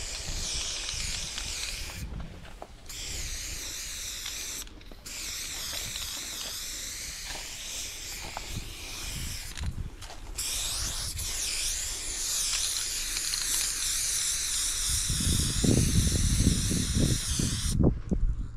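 Aerosol spray paint can hissing in long sprays, stopping briefly three or four times as the nozzle is released. A low rumbling noise comes in near the end.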